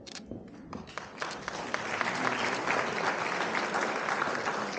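Audience applauding: a few scattered claps at first, swelling into steady applause about a second in.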